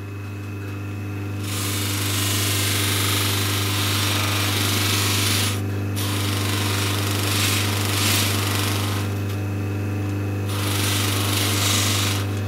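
Electric bench motor running a spinning wire wheel with a steady hum. From about a second and a half in, a small metal part is pressed against the wheel, giving a harsh, hissing scratch as it is cleaned. The scratch eases twice as the part is lifted and turned.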